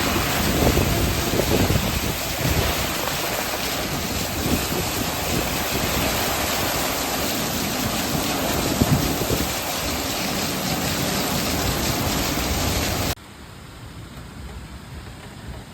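Storm noise: a loud, steady rush of wind and rain, with gusts buffeting the microphone in the first several seconds. About 13 seconds in it cuts off abruptly to a much quieter rain hiss.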